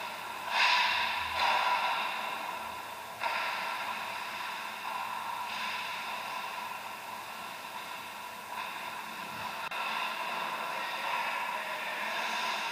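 Ice rink ambience: a steady hiss with several louder scraping swells of hockey skates on the ice, each lasting about a second, and a single sharp click about ten seconds in.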